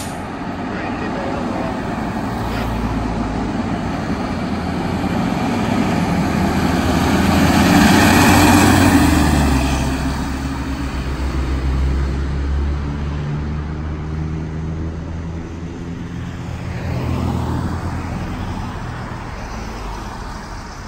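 Fire engine driving past: engine and tyre noise building as it approaches, loudest about eight to nine seconds in as it passes, then a steady low engine drone fading as it pulls away.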